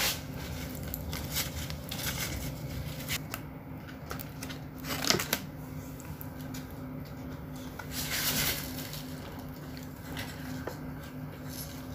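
Light clicks and rustles of cardboard food boxes and a paper tray being handled on a table, with a louder scrape about five seconds in and another rustle a few seconds later. A steady low hum runs underneath.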